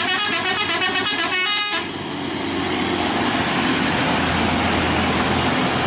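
Fuel tanker truck's horn sounding a quick run of high repeated notes for under two seconds, then the truck's engine and tyres passing as a steady rushing noise.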